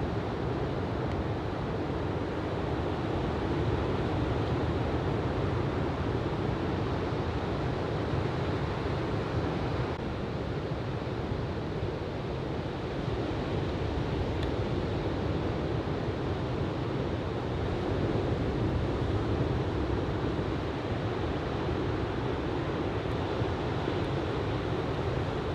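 Surf from a typhoon swell breaking and washing onto a sandy beach, a steady rushing noise with slow swells in loudness, and some wind on the microphone.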